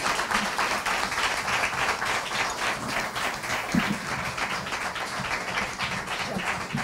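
Audience applauding, a dense and steady sound of many hands clapping.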